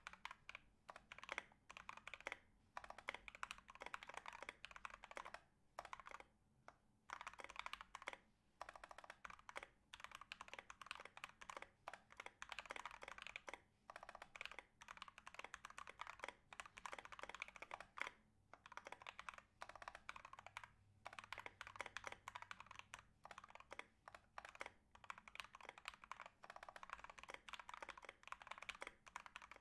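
Typing on a 60% mechanical keyboard with a brass plate, lubed and filmed Banana Split linear switches and MT3 ABS keycaps: rapid key strokes in runs broken by short pauses. The stock stabilizers are clipped and heavily lubed, yet the owner finds them still pretty rattly.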